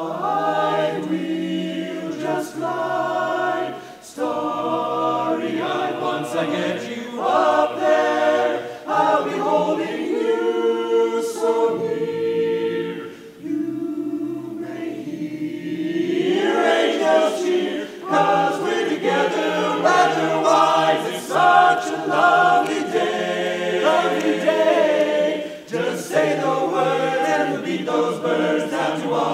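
Men's a cappella vocal ensemble singing close-harmony chords. About halfway through the voices briefly thin out, then swell back in with a rising glide.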